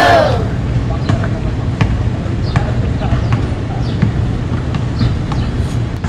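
Basketball bouncing now and then on an outdoor concrete court, as irregular sharp knocks, with faint players' voices over a low steady rumble.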